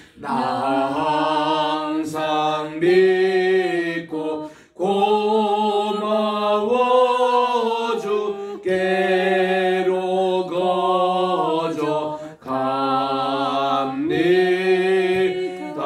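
A man singing a Korean hymn alone and unaccompanied, in slow, long-held notes, breaking off for breath twice between phrases.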